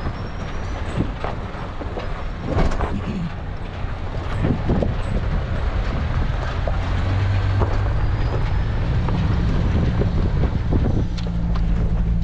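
Inside the cab of a 4WD driving down a rough dirt track: the engine drones low and steady, with knocks and rattles as the vehicle bumps over ruts and rocks. The engine drone grows louder about halfway through and again near the end.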